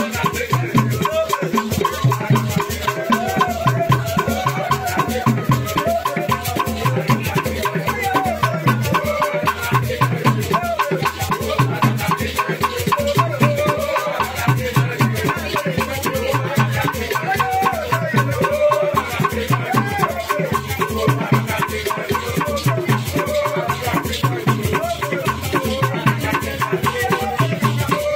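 Nigerian traditional dance music: a steady drum beat with shaken rattles going constantly and voices singing over it.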